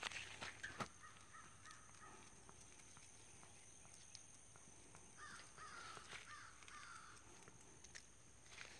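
A crow cawing four times, faint and a little distant, in the second half. A few light clicks at the start.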